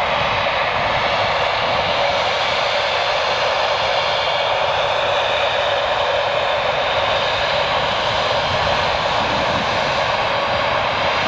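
Embraer 190's twin GE CF34-10E turbofan engines running steadily at low power as the jet taxis slowly, an even, unchanging jet rush with no rise or fall.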